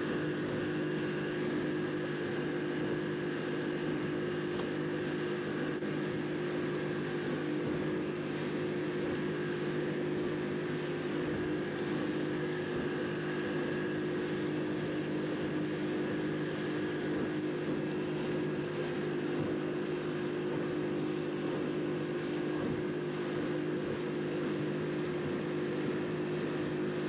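Motorboat engine running steadily at cruising speed, a constant drone that does not change in pitch, over the rush of water in the wake.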